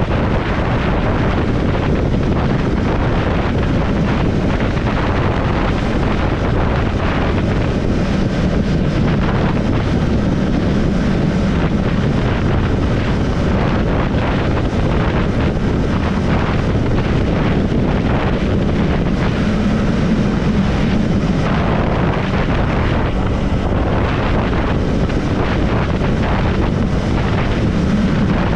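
Triumph Scrambler 400 X's single-cylinder engine running steadily while riding along the road, with wind buffeting the microphone.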